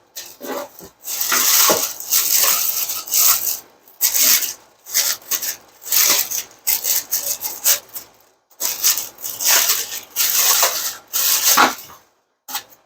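Packaging being handled and pulled off a newly unboxed doweling joiner: irregular rustling and crinkling in a run of short bursts, with brief pauses.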